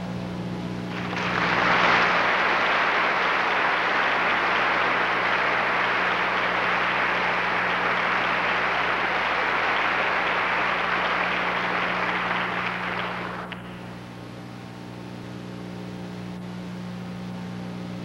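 Audience applauding: the clapping swells in about a second in, holds steady, and stops fairly sharply about thirteen seconds in. A steady low electrical hum runs underneath.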